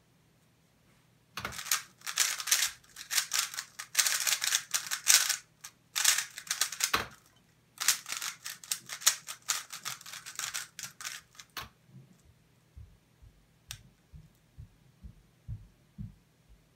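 MoYu Weilong GTS3M Lite 3x3 speedcube turned very fast, a dense rattle of plastic clicks lasting about five and a half seconds during a 5.5-second solve and ending with a knock. After a short pause comes a second run of rapid turning of about four seconds, then a few soft taps and one sharp click.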